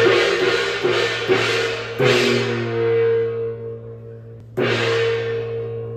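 Handheld brass gong struck with a mallet: a few quick strokes at first, then one strong stroke about two seconds in and another near the end, each ringing out with a long humming tone that slowly fades.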